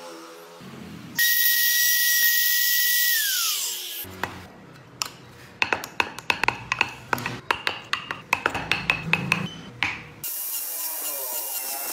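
A small pen-style rotary tool runs with a steady high whine for about two seconds, then winds down with falling pitch. Next comes a run of sharp, irregular clicks and taps as a thin pointed tool works between the spokes of small carved wooden wheels. Near the end, the rotary tool starts up again and runs steadily.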